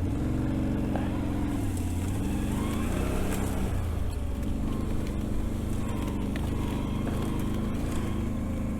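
Can-Am Renegade 1000 ATV's V-twin engine running at low speed, its pitch rising and falling with the throttle as it crawls over rough ground.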